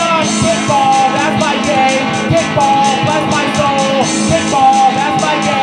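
Rock music: guitar and drums, with a wavering, held melody line over a steady cymbal beat.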